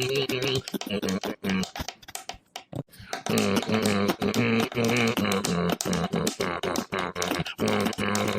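Beatboxing: a rhythmic run of mouth-made clicks and beats over held, voiced notes, thinning out briefly between about one and a half and three seconds in.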